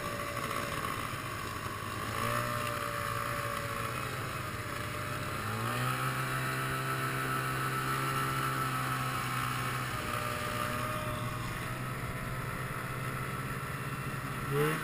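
Snowmobile engine running along a trail. It revs up about two seconds in and again more strongly a few seconds later, holds a steady higher note, then eases off, with a short rev near the end. A steady rushing noise runs underneath.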